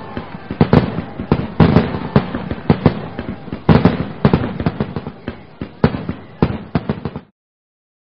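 Fireworks going off: a dense, irregular series of sharp bangs and crackling reports. The sound cuts off suddenly about seven seconds in.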